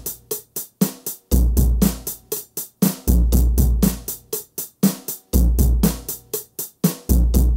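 Donner Backbeat electronic drum kit played with sticks through its sound module: a steady drum groove with even hi-hat or cymbal strokes about four a second and deep kick-drum thumps every couple of seconds.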